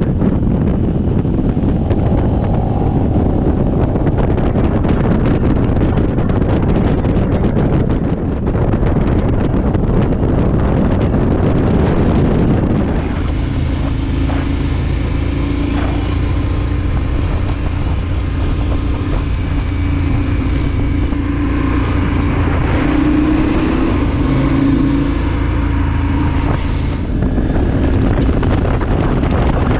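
Motorcycle riding at road speed, heavy wind buffeting on the microphone over a low engine drone. From about 13 s to 27 s the wind drops and the motorcycle engine's steady note comes through plainly, rising and falling a little with the throttle, before the wind noise returns.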